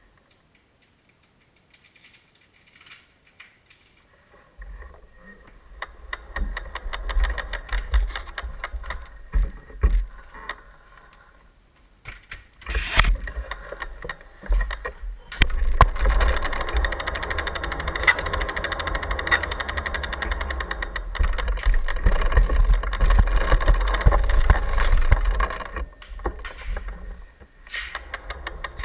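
Giant Trance mountain bike being wheeled along by hand, heard through a camera clamped to its rear stay: a rumble and knocks carried through the frame, with the rear hub's freewheel clicking rapidly as the wheel rolls without pedalling. Nearly silent at first, it grows louder and busier from about halfway on.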